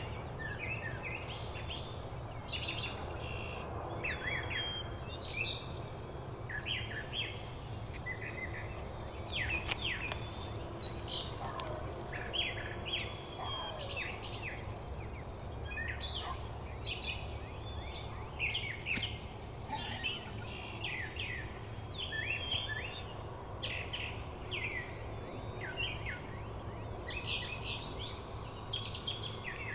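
Dawn chorus of many small songbirds, with overlapping chirps and quick song phrases throughout, over a steady low background rumble.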